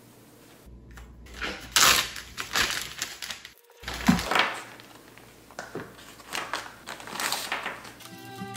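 Plastic zip-top freezer bag crinkling and rustling as it is handled and opened, in a run of uneven bursts, loudest about two and four seconds in.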